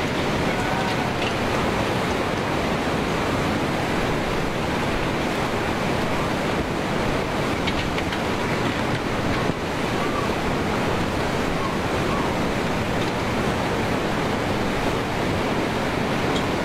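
Tsunami floodwater surging inland and churning through buildings: a loud, steady, unbroken rushing of water.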